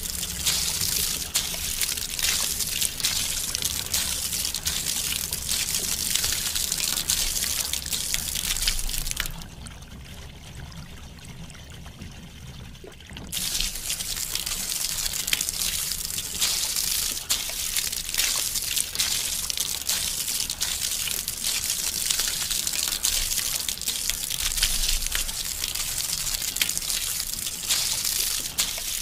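Soapy water in a basin sloshing, splashing and trickling as hands dunk and scrub a doll in it. The splashing drops away quieter for about four seconds roughly a third of the way in, then picks up again.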